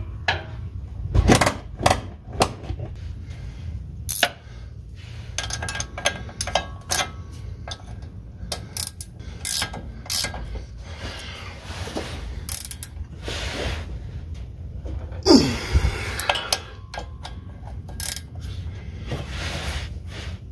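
Ratchet wrench clicking in short runs as the U-joint strap bolts at the rear axle's pinion yoke are tightened, with metal tools clinking and knocking against the parts and one louder knock about three quarters of the way through.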